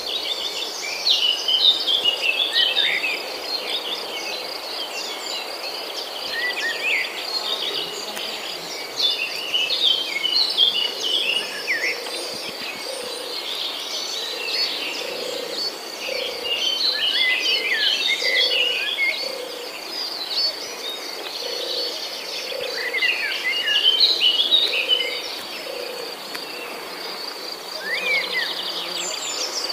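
Outdoor nature ambience: a steady, high-pitched cricket trill with many birds chirping and singing over it, and a lower call repeating about once a second through the middle.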